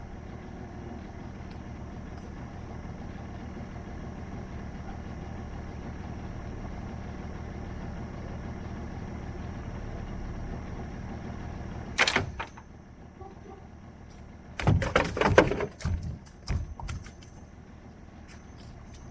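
A boat's motor idles steadily with a low hum. About twelve seconds in a sharp knock comes and the hum drops away, and a few seconds later a run of loud clattering thumps follows.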